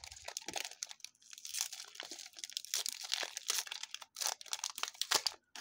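Pokémon TCG Chilling Reign booster pack's foil wrapper crinkling and tearing as it is pulled open by hand, an irregular run of crackles and rips.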